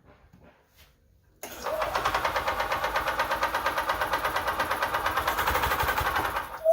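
Gas engine of a 1998 EZ-GO TXT golf cart kicking in abruptly about a second and a half in, going with an even, rapid pulse, then stopping about five seconds later. A brief sharp squeak comes right at the end.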